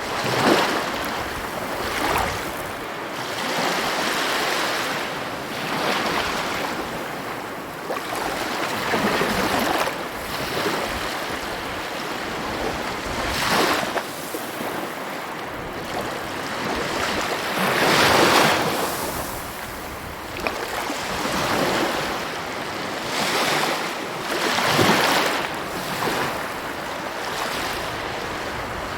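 Sea waves breaking on the shore in a steady wash of surf, with a fresh wave crashing every few seconds; the biggest break comes about eighteen seconds in.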